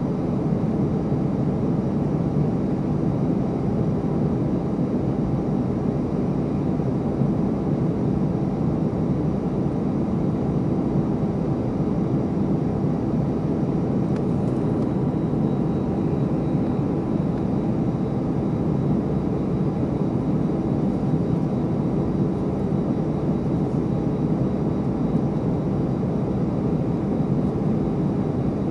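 Steady low rumble of jet engines running, holding level with no rise or fall.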